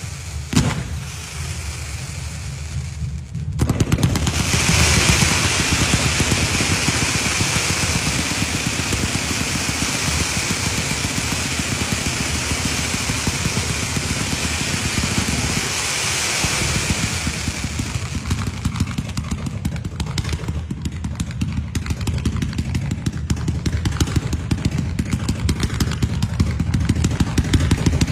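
Firecrackers going off in a long, rapid run of crackling pops, with a loud hiss over them from about four seconds in to about eighteen seconds in.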